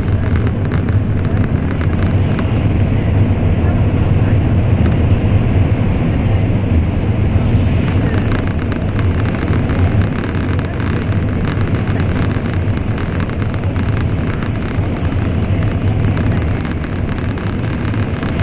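Steady deep rumble of an N700 series Shinkansen running, heard inside the passenger cabin.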